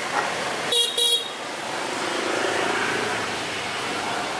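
Vehicle horn giving two short beeps about a second in, over steady background noise.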